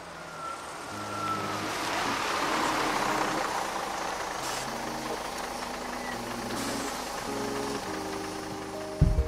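A bus pulling in and running at a standstill: a steady engine-and-road noise that swells about two seconds in and then holds, under soft sustained keyboard chords. A loud low thump comes near the end.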